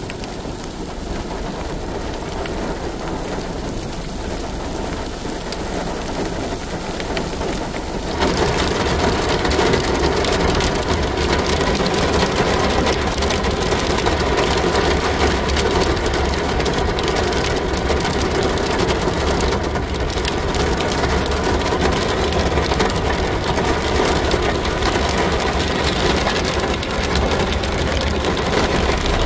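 Rain falling steadily, with a vehicle engine running underneath. About eight seconds in, the sound suddenly gets louder and fuller.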